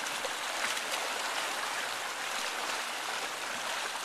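Steady splashing of pool water from a swimmer's freestyle arm strokes and kicking.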